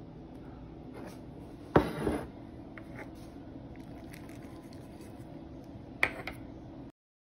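Kitchen handling noise over a steady low hum: a loud knock about two seconds in followed by brief rustling, a couple of faint clicks, and a sharp tap near the end, after which the sound cuts off.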